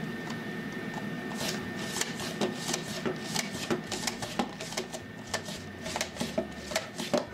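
Pampered Chef Simple Slicer being hand-cranked through a whole tomato. A fast, irregular run of clicks and snaps starts about a second and a half in.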